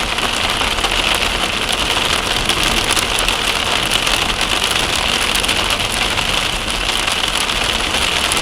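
Heavy rain falling steadily and loudly, a dense mass of drop hits with no let-up.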